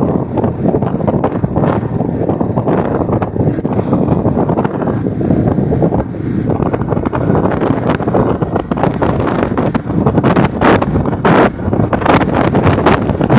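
Wind rushing and buffeting over the microphone of a moving motorcycle, a loud rough roar with the bike's engine and road noise underneath. The buffeting gusts harder in the last few seconds.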